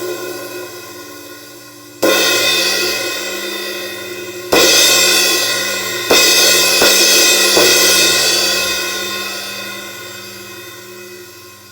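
1960s A. Zildjian 20-inch sizzle ride cymbal (1867 g) struck several times, each hit about every two seconds, then a couple of lighter hits, every stroke ringing into a long, bright wash. It is then left to ring and slowly fade.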